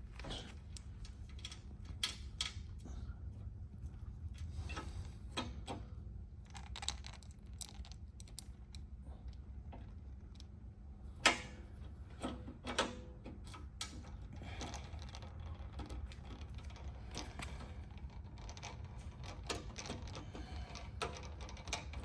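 Small metal clicks and taps of flush bolt hardware being handled while a screw is started into the flush bolt guide, with one sharper click about eleven seconds in, over a low steady hum.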